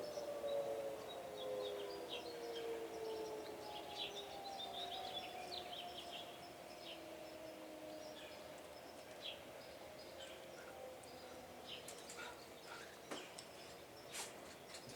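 Outdoor tornado warning siren winding down at the end of its test, its tone falling in pitch and fading out over the first several seconds. Birds chirp throughout.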